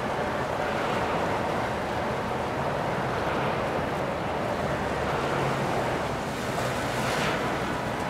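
Motorboat under way on the water: a steady rush of water and wind with a low engine hum underneath, and a brief louder hiss about seven seconds in.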